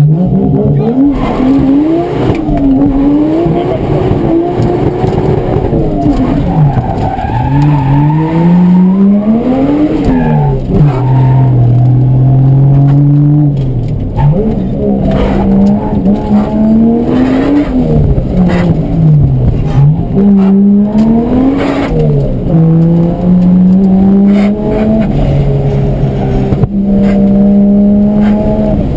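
A hard-driven car's engine revving up and down again and again, its pitch climbing and dropping with each pull and lift. At times it holds flat at high revs, as when bashing the rev limiter. Now and then there are short sharp cracks.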